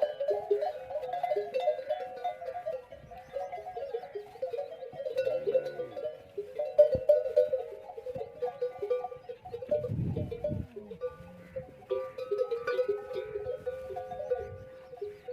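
Many camel bells clanking and jangling irregularly as a herd walks, a dense overlapping ringing with no steady rhythm. A low animal call about ten seconds in.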